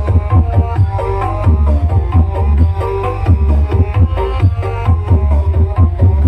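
Loud music from a large carnival sound system: very heavy pulsing bass under a fast, busy drum pattern and a melody line.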